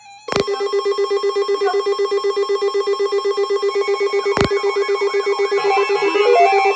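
Electronic weather-alert alarm sounding ahead of a severe thunderstorm warning: a loud, rapidly pulsing buzzing tone, with a sharp click about every four seconds. About two-thirds of the way through, a stepping melody of beeps joins it.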